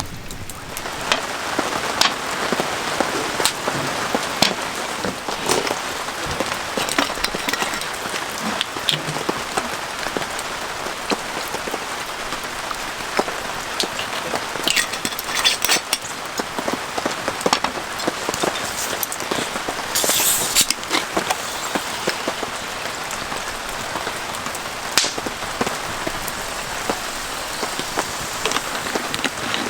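Wood fire crackling and popping in a campfire pit, with a steady hiss under many irregular sharp pops, a dense cluster of them about fifteen and twenty seconds in.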